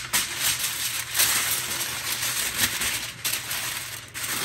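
Aluminium foil crinkling and crackling as it is folded and pressed by hand around a rack of ribs to wrap them, a continuous run of irregular crackles.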